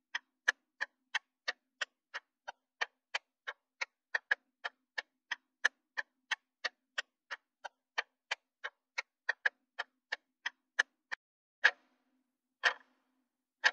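Clock ticking steadily, about three ticks a second. Near the end it slows to three louder ticks about a second apart.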